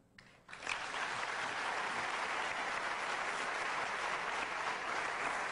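Studio audience applauding, starting about half a second in and then going on steadily.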